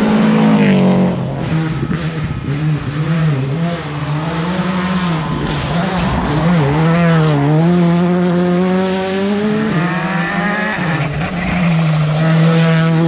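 Rally car engines driven hard, pitch rising and falling repeatedly as the drivers shift gears and lift for corners, over several separate car passes that change abruptly.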